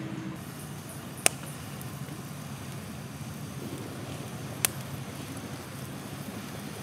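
Small wood campfire crackling and hissing steadily, with two sharp pops, one about a second in and another past halfway.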